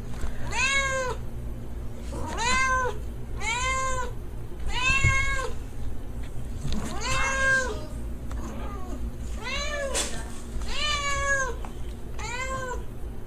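A domestic cat meowing over and over, about nine short, arched meows roughly a second apart, while a hand strokes it. The owner takes the meows as a sign that the cat wants to be left alone.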